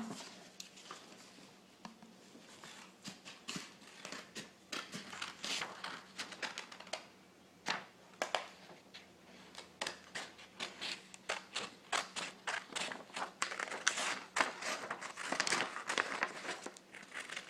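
Scissors snipping through a sheet of paper to cut out a drawn shape: a long run of short, irregular snips with paper rustling, coming faster in the second half.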